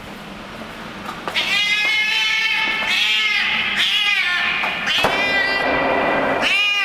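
Stray cat making a run of meow-like calls while it eats: about five in a row starting about a second in, each rising and falling in pitch, the last one longer. These are the contented noises some cats make over food, which the owner calls its 'happiness' noises.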